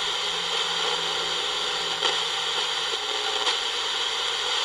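Vogurtime kit radio's speaker hissing with static as it is tuned between stations, with a few faint crackles.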